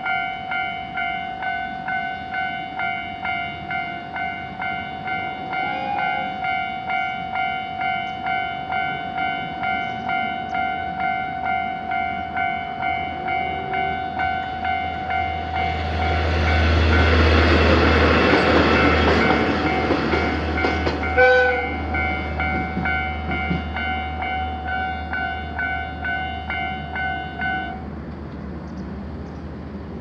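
Electronic warning bells of a Japanese level crossing ringing steadily, about two strikes a second, while a diesel train passes a little past halfway with a loud rush of noise and deep engine rumble. The bells stop near the end as the barriers lift.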